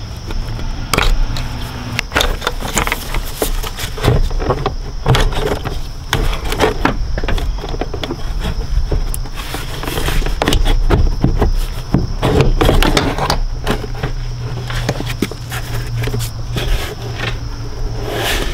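Plastic airbox on a BMW E46 being unclipped and lifted out by hand: irregular clicks, knocks and scrapes of hard plastic as the mass airflow sensor plug and the airbox lid and housing come free.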